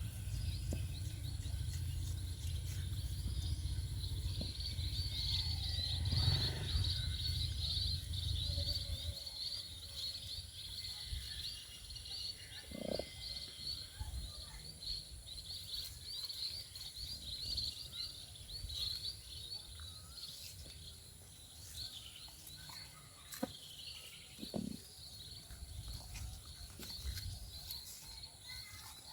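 Outdoor rural ambience with a steady high chirping throughout. A low rumble stops about nine seconds in, and two short low calls come later.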